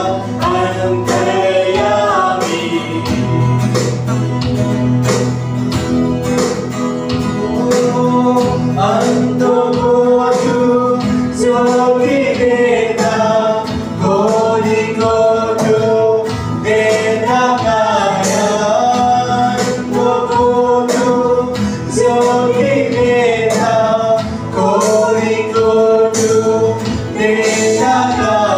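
Live worship band performing a Hindi worship song: a woman's and a man's voices singing over strummed acoustic guitar.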